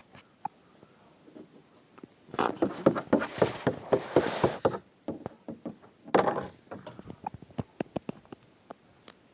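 A long sputtering fart, a rapid run of pops over a rush of air lasting about two and a half seconds, then a shorter fart about a second and a half later, followed by scattered faint pops.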